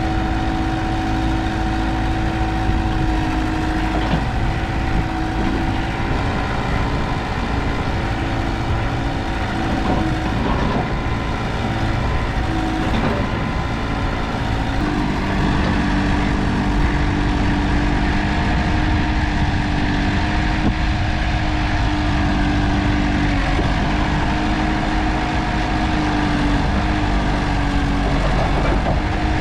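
1995 JCB 3CX backhoe loader's diesel engine idling steadily, its note shifting slightly about halfway through.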